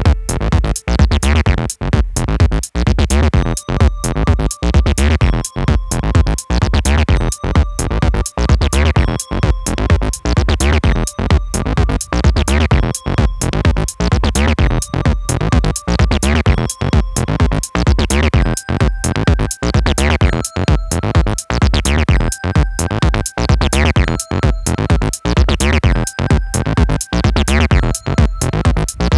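Electronic instrumental music: a steady drum-machine beat and synth bass from KORG Gadget on an iPhone, with held keyboard notes from the layered phone and keyboard parts changing every second or two.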